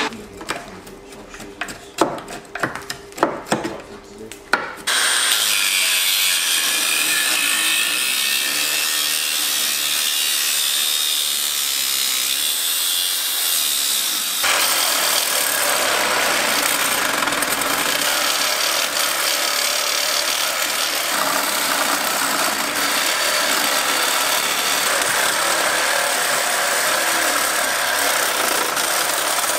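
A few sharp knocks, then about five seconds in a cordless power saw starts cutting through steel exhaust pipe under the BMW E46 and runs on steadily. Its sound turns harsher about 14 seconds in.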